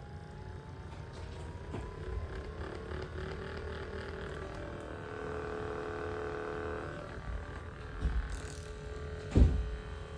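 Neoprack percussion massage gun's motor running with a whine that rises slowly in pitch, then holds steady. A sharp thump near the end is the loudest sound.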